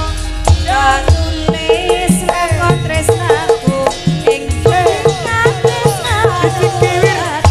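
Javanese gamelan (karawitan) music in Sragenan style: a note repeated steadily about three times a second, sharp drum strokes, and a wavering, ornamented melody line over them.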